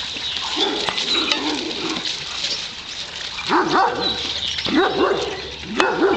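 Dogs yipping and whining, with three short runs of high, pitch-bending yelps in the second half.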